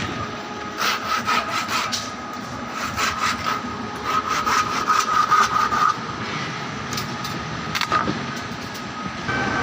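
Construction-site work: rasping and scraping with bursts of sharp clinks, over a steady high-pitched hum from a running machine.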